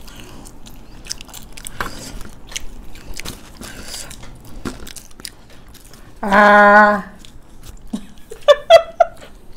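Close-miked chewing and crunching of crisp chaat, with many small wet mouth clicks. About six seconds in comes a loud, held vocal hum on one steady pitch, and near the end short bursts of laughter.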